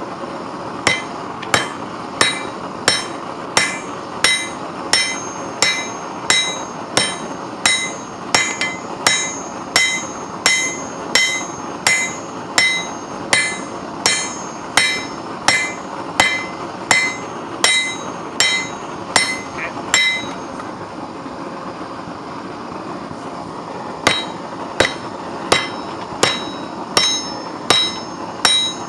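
Hand hammer striking steel on an anvil in a steady forging rhythm, about three ringing blows every two seconds, over a steady background rush. The blows pause for a few seconds about two-thirds of the way through, then start again.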